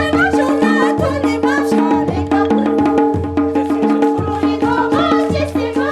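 Changthang folk dance music: singing over a steady drone and a drumbeat.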